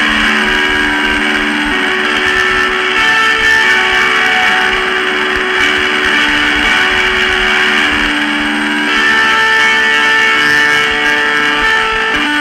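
Lo-fi noise music: a slow line of long held, distorted notes moving step by step in pitch over a thick hissy wash.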